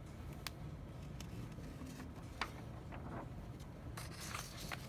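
A sheet of paper rustling as it is lifted and flipped over, about four seconds in, after a few faint scattered taps from handling.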